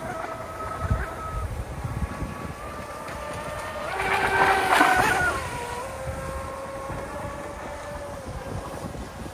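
Pro Boat Formula Fastech RC speedboat running at speed, its 2000 kV brushless motor giving a steady whine over the hiss of its spray. It is loudest about halfway through as the boat turns past closest, and the whine drops a little in pitch after that.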